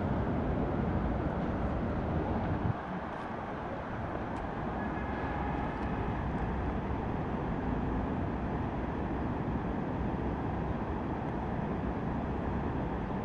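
Steady outdoor noise: a low wind rumble on the microphone over the faint hum of distant city traffic, easing slightly about three seconds in.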